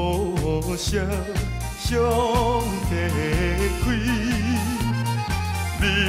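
Background music: a song with a steady bass beat of about two notes a second under a wavering melody line.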